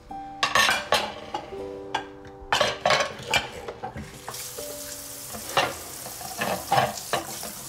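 Dishes and cutlery clinking and scraping at a kitchen sink, with a tap starting to run about four seconds in. Soft background music with held notes plays underneath.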